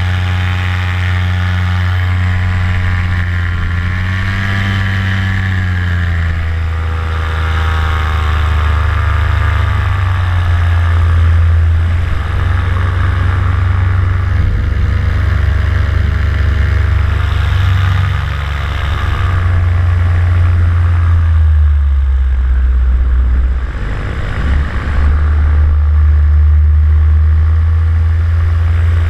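Vittorazi Moster 185 single-cylinder two-stroke paramotor engine running in flight. Its speed rises and falls a few times, with a dip about three quarters of the way through.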